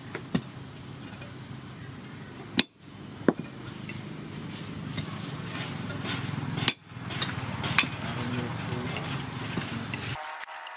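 Hand hammer striking a small steel chisel held on a leaf-spring axe head over a stake anvil: a handful of sharp, irregular metal-on-metal clinks, two of them much louder than the rest.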